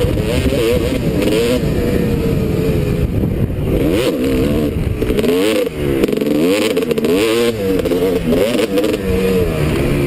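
Motocross bike engines revving hard and falling back again and again as riders work the throttle, more than one bike at a time, the pitch swooping up and down rapidly.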